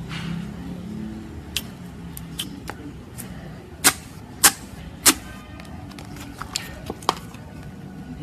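Clear slime being pressed and worked, giving a series of sharp pops and clicks as trapped air bursts. The three loudest come close together about halfway through.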